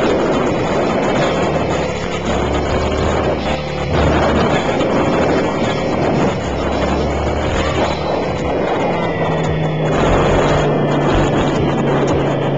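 Belt-driven collective-pitch RC helicopter in flight doing aerobatics: a steady, dense rush of rotor and motor noise with faint whining tones.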